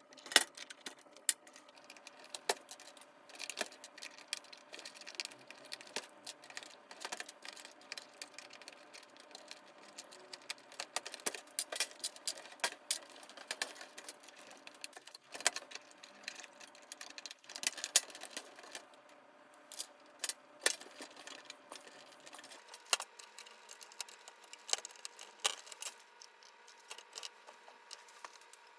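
Plastic clicks and clatter from an HHKB Professional 2 keyboard and its keycaps being handled during cleaning: irregular sharp clicks, some in quick clusters, with a light rattle.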